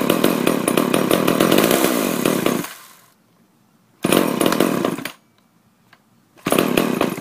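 Poulan Super two-stroke chainsaw engine running and then dying out about two and a half seconds in. It fires up twice more, each time for only about a second before cutting out again: the saw has idle problems and won't keep running.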